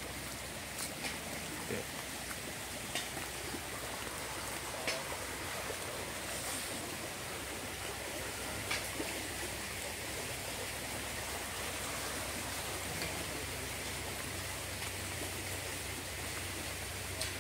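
Small river flowing steadily, with a few faint ticks scattered through it.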